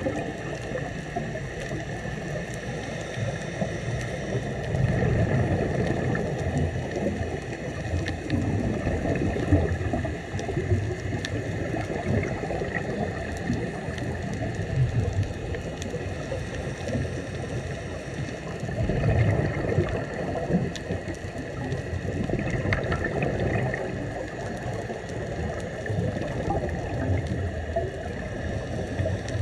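Scuba diver breathing through a regulator underwater, with bursts of exhaled bubbles swelling every four to five seconds over a steady underwater hiss.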